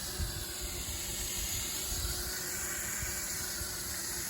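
Mini quadcopter drone's small propellers whirring as a steady hiss in flight, with wind buffeting the microphone in low rumbles.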